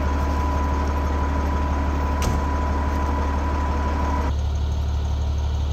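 Peterbilt 389 semi truck's diesel engine running with a steady low hum. A steady high-pitched tone sounds over it and cuts off abruptly about four seconds in, and there is a single click about two seconds in.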